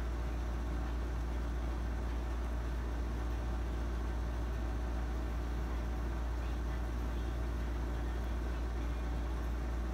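Steady low-pitched hum under faint background hiss.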